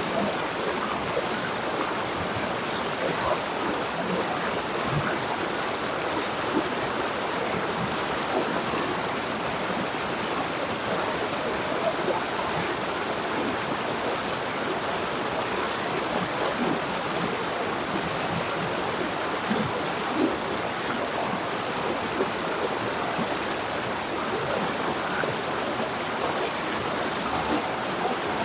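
River water flowing and splashing over rocks in a steady rush, with small splashes throughout.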